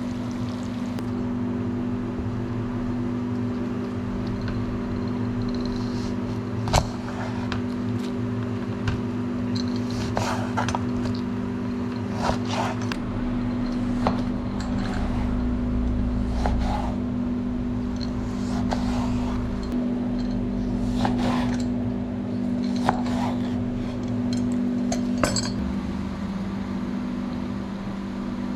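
Utensils clinking against cookware and dishes now and then, over a steady low hum.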